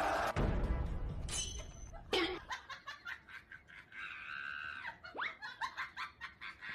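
People laughing in short bursts, with a few quick upward-sliding squeaks in the second half.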